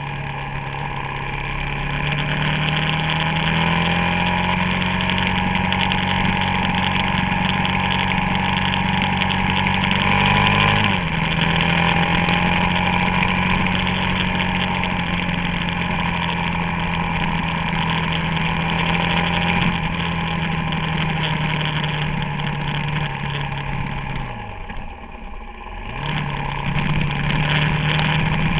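Suzuki DR-Z400SM's single-cylinder four-stroke engine running at cruising revs under a steady rush of wind noise. The engine note climbs in the first few seconds and steps down slightly about eleven seconds in. A few seconds before the end it falls steeply and briefly quietens, then picks up again as the throttle comes back on.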